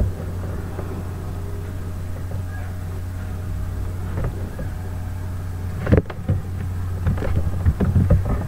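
Steady low electrical-sounding hum with a sharp knock about six seconds in and a few softer knocks near the end.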